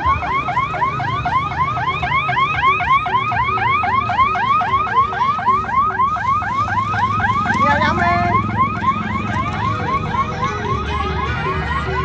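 Electronic siren in a rapid yelp, about five or six quick rising whoops a second, growing weaker after about eight seconds, over a low rumble.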